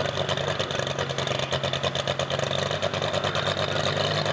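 John Deere super stock pulling tractor's turbocharged diesel engine running at a steady pitch while hooked to the sled, with a rapid even firing pulse.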